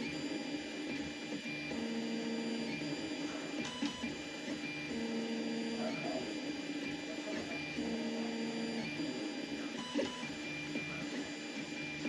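Tevo Tornado 3D printer printing: its stepper motors sing pitched tones that switch on, off and change with each move, roughly every second, over a steady whir from the cooling fans.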